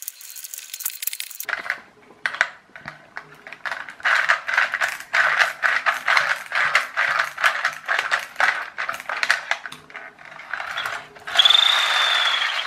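Rapid ratchet-like clicking as a screwdriver drives screws into the clockwork toy car's plastic chassis. Near the end comes about a second of whirring from the repaired clockwork spring motor running.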